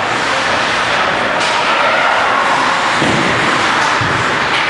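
Ice hockey game sounds in an arena: a loud, steady wash of rink noise, with a sharp crack about a second and a half in and another near the end, typical of sticks, pucks or bodies hitting the boards.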